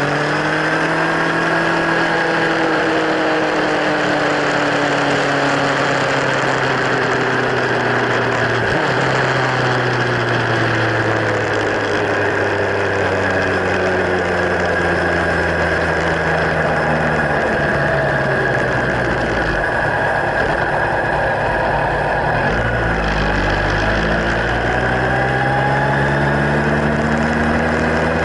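Kawasaki Z1000's inline-four engine running through LeoVince slip-on silencers. Engine speed rises at first, eases down slowly over several seconds, drops again, and climbs once more near the end.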